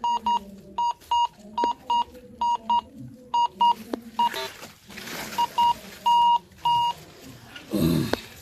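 A metal detector giving short, high beeps, singly and in pairs, over and over: it is signalling a buried metal target, one the detectorist calls a good signal. About halfway through there is a rustling, scraping noise, and near the end a short low noise.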